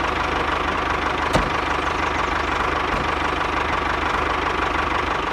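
A tractor engine idling steadily with an even knocking pulse, joined by a single sharp click about a second and a half in.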